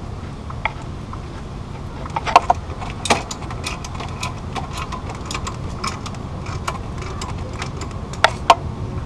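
Irregular light metallic clicks and clinks of tools and clutch parts as a new pressure plate is bolted up against the flywheel of a 1997 Mitsubishi 3000GT. The sharpest clinks come in pairs about two seconds in and again near the end, over a steady low rumble.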